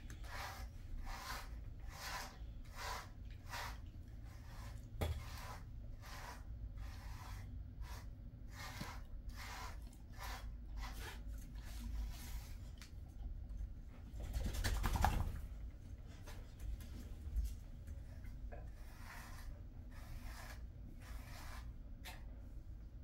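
Pet grooming brush stroking through a Jindo dog's thick coat, a rhythmic rasp about twice a second. Past the middle there is a louder rustle for about a second, and the strokes pick up again near the end.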